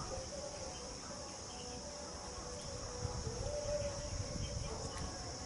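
Steady high-pitched chirring of insects in the open air.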